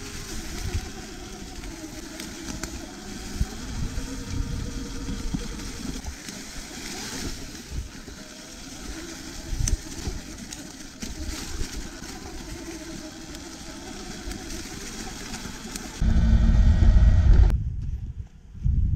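Sur-Ron electric off-road bike riding slowly over rough forest ground: a steady rattle and knocking of the frame and suspension over bumps, with a faint electric-motor whine rising and falling. Near the end comes a loud low rumble of wind on the microphone for about a second and a half.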